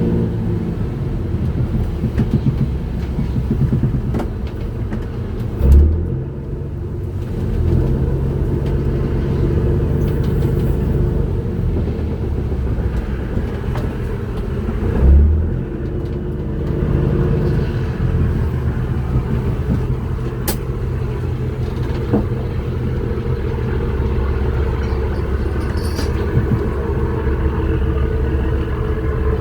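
Fishing trawler's diesel engine running steadily, a low drone, with two heavy low thumps about ten seconds apart.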